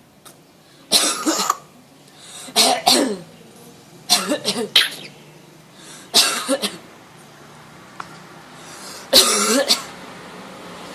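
A parrot imitating human coughing: five short cough-like bursts, some broken into two or three quick hacks, with the last one after a longer pause.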